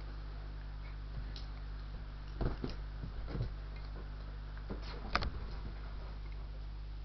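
Scattered short knocks and clicks of dogs scrambling about in play, the loudest about five seconds in, over a steady low hum.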